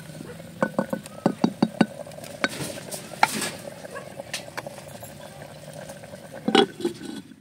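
A wooden spoon stirring mutton curry in a clay handi, knocking against the clay pot in a quick run of taps, then more scattered knocks. A louder clatter comes near the end.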